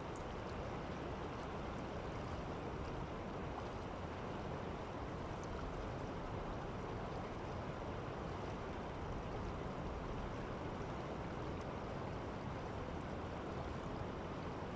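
Steady rushing of river water flowing past the bank.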